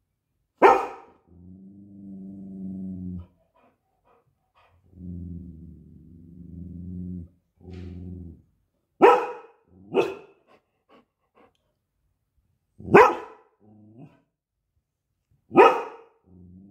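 Golden retriever growling low and long at her own reflection in window glass, breaking off into five single sharp barks. The growls last two to three seconds each.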